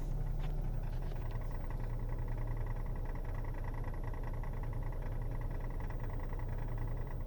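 Ford Taurus X idling, heard inside the cabin: a steady low engine hum with a faint, rapid, even ticking from behind the driver's side of the dash, which the owner suspects comes from the transmission.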